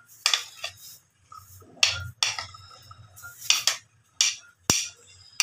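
A metal spoon scraping and clinking against a ceramic plate as boiled chickpeas are pushed off it into a glass bowl: a series of short scrapes and clinks, one sharp clink near the end.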